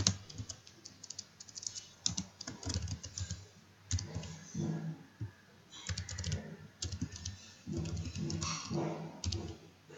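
Typing on a computer keyboard: keystrokes come in several short runs with brief pauses between them.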